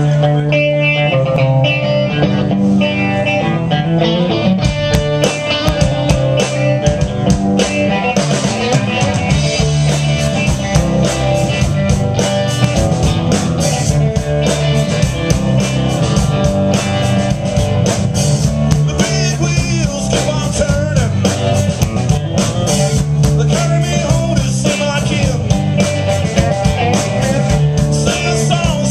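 Live band playing amplified on stage: electric guitars over a driving drum kit with a heavy bass line.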